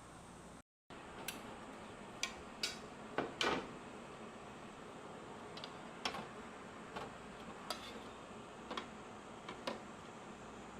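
Utensils clinking against dishes: about a dozen short, light clinks at irregular intervals, several close together around the three-second mark, over a steady low hiss.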